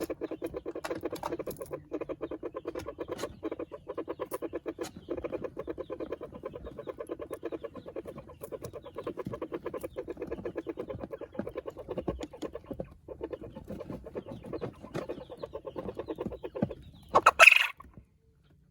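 Chickens clucking in a rapid, continuous low chatter, with one short, loud, higher-pitched squawk near the end.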